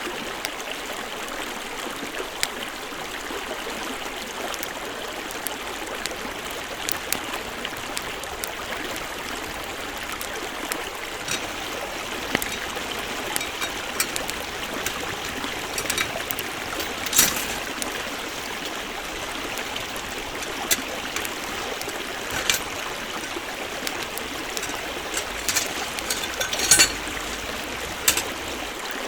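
Steady rushing of a stream, with sharp pops and crackles now and then from a wood campfire, the loudest a few seconds apart in the second half.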